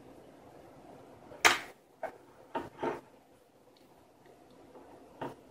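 Small clicks and knocks from handling a mini quadcopter's carbon-fibre frame and wiring on a wooden table. One sharper knock comes about a second and a half in, a few lighter clicks follow within the next second and a half, and one more comes near the end.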